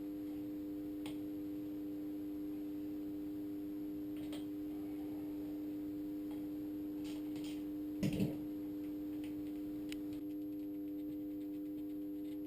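A steady hum of a few held tones, with faint scattered clicks from hand tools and one louder clunk about eight seconds in.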